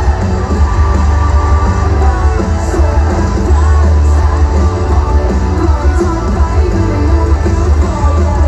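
Rock band playing live through a loud PA: a singer over electric guitars, with strong bass throughout.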